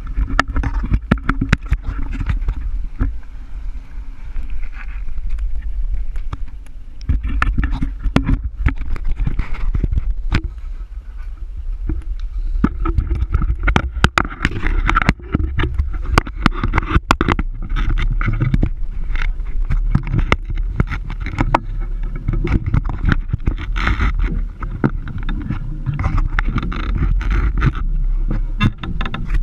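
Fishing boat under way on open ocean: a steady low drone from its twin outboard engines mixed with wind on the microphone, broken by frequent sharp knocks and thumps.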